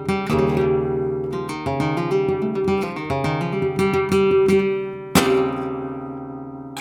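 Handmade flamenco blanca guitar (alpine spruce top, cypress back and sides) played solo in flamenco style. A quick run of plucked notes gives way to one sharp chord about five seconds in that rings and fades.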